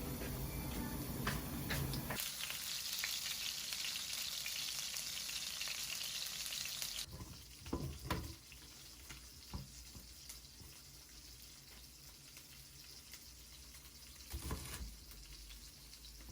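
Food sizzling in a hot frying pan. The sizzle starts about two seconds in and cuts off abruptly about seven seconds in, followed by a few light knocks.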